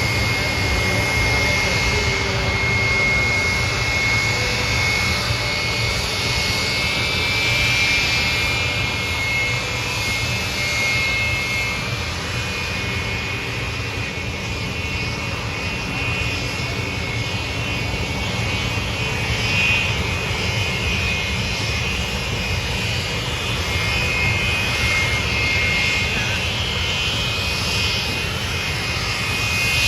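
Jet aircraft engines running steadily: a continuous rumble with a high, slightly wavering whine on top.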